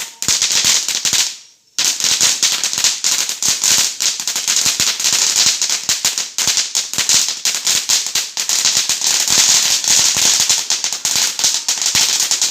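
Fireworks burning with a dense, continuous crackling and hiss, which drops out for a moment about one and a half seconds in.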